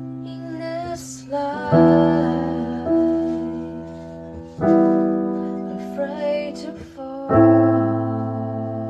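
Background music: piano chords struck three times, about three seconds apart, each ringing on and fading slowly.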